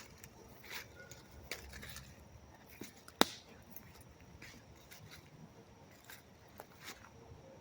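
Handling noise from a handheld phone: scattered faint clicks and rustles, with one sharp click about three seconds in.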